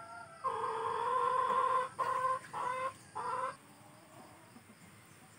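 A rooster crowing in the background: one long call starting about half a second in, then three short ones.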